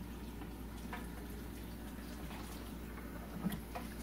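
Faint spoon clinks and liquid sounds as green juice is stirred in a pitcher, with a few light ticks, the clearest about three and a half seconds in, over a steady low hum.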